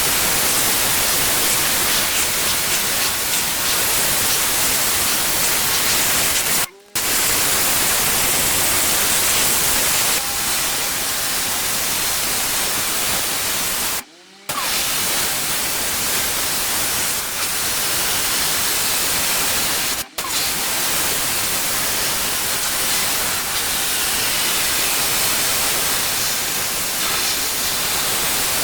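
Pressure washer spraying water onto paving as a steady loud hiss, cut off abruptly for a moment three times.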